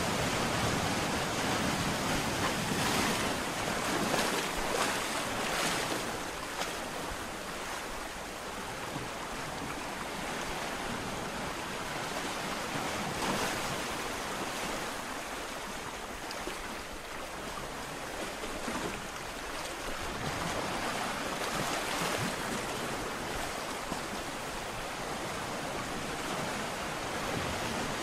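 Ocean surf: waves breaking and washing in as a steady rush, swelling a little louder every several seconds as a wave breaks.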